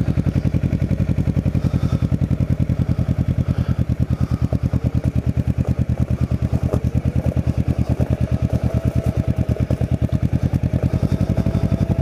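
Kawasaki Ninja 650R's parallel-twin engine idling with a steady, even, rapid pulse, heard from the rider's seat.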